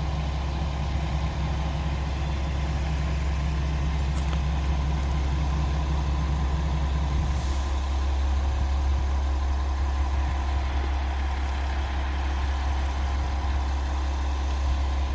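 Diesel railcar engine idling steadily with a low hum. About seven seconds in there is a short hiss of air, and the higher part of the hum stops at the same moment.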